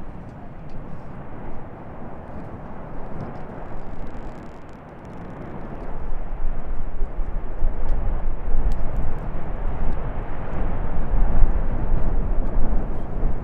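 Lava fountain erupting from the Fagradalsfjall (Geldingadalir) crater vent: a continuous deep rushing rumble of gas and spattering lava, with a few faint clicks. It grows louder and deeper about six seconds in.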